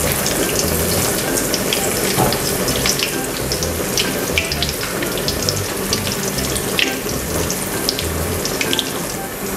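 Frozen spring rolls (lumpia) deep-frying in hot oil in a wok: a steady sizzle with scattered crackling pops.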